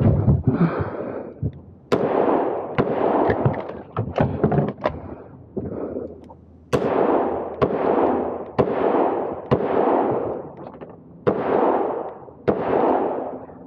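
Smith & Wesson 625 revolver fired in a rapid string, each shot sharp and trailing off over about half a second. The shots come roughly every half second to second, with a break of about two seconds midway.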